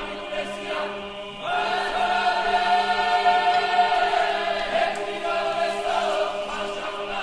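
Background music of a choir singing long, held chords, swelling up about a second and a half in.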